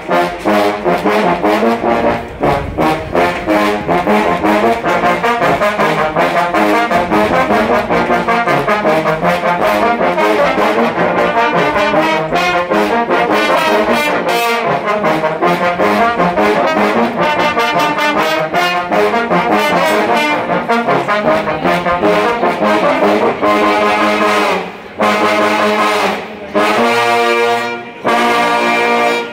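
Marching band trombone section playing a loud, rhythmic brass tune together. Near the end the playing stops briefly several times between short phrases.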